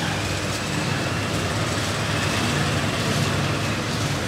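Steady roadside traffic noise, with the low, even drone of vehicle engines running.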